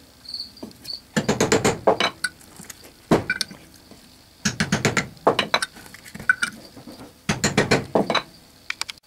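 A hammer taps a brass wedge driven into the seam of a three-jaw scroll chuck, metal on metal, to split the tight-fitting chuck body apart. The taps come quickly in bursts of several, with short pauses between the bursts.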